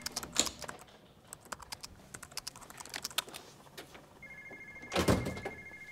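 Computer keyboard typing in quick, uneven clicks. About four seconds in, a telephone rings with a steady two-tone ring lasting about two seconds, and a single loud thump comes while it rings.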